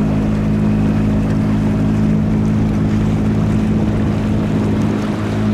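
An engine drones steadily at an even pitch, with a hiss of wind or water over it.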